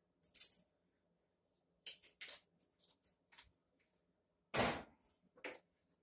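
Scattered clicks, taps and knocks of kitchen containers and utensils being handled while sauce ingredients are measured out, with one louder clatter about four and a half seconds in.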